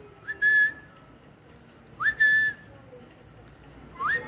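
Three short, breathy whistles about two seconds apart, each sliding quickly up to one pitch and holding it briefly.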